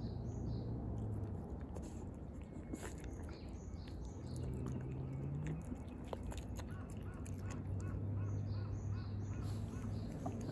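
Cats chewing wet cat food and crunching dry kibble from a glass bowl, with many small clicks of eating. Birds chirp in the background and a low steady hum runs underneath.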